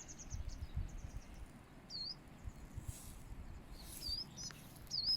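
Small birds chirping: scattered short high calls, several with a quick dip-and-rise in pitch, over a low uneven rumble.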